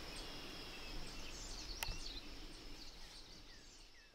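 Woodland ambience: small birds chirping now and then over a steady hiss, fading away gradually, with a single sharp click about two seconds in.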